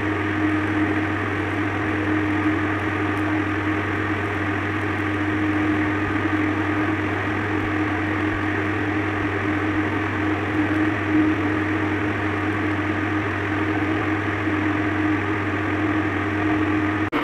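Stick (SMAW) welding arc running steadily along a seam on a large steel vessel, over a steady low hum.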